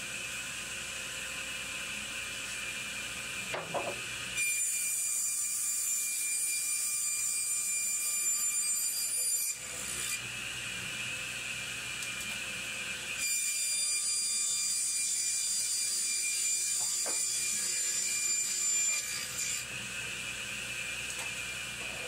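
A 1959 resaw runs with a steady whine, and twice a cedar board is fed through it and ripped lengthwise. Each cut adds about five seconds of loud, hissing sawing noise, starting about four seconds in and again past the middle.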